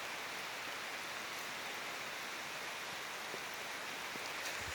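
Heavy rain with big drops falling steadily: an even hiss with a few faint sharper drop ticks.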